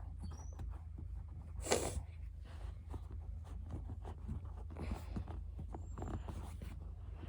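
Quiet handling noises of Play-Doh being shaped by hand: scattered light clicks and rustles over a steady low hum, with a short, loud breathy noise about two seconds in.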